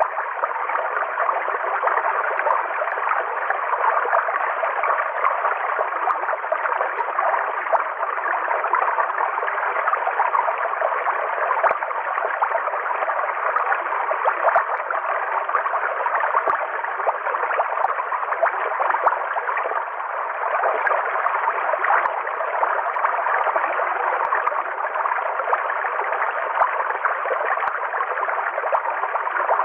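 River water flowing in a steady, even rush, with no change throughout and little low rumble.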